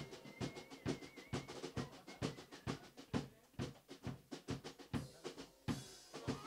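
Background music: a drum break on a drum kit, quick repeated snare and drum strokes at about four to five a second.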